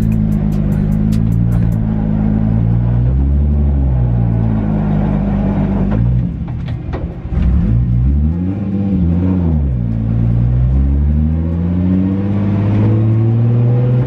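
Nissan 240SX engine pulling hard through the gears under acceleration. Its pitch climbs, drops sharply at a gear change about six to seven seconds in, and climbs again with another dip and rise around nine seconds.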